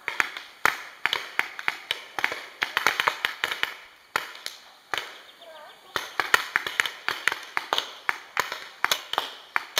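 Paintball markers firing in irregular volleys, sharp pops several a second, with voices faintly in the background.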